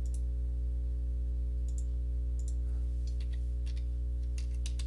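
Scattered sharp clicks of a computer mouse and keyboard as a dimension value is entered, over a steady low electrical hum.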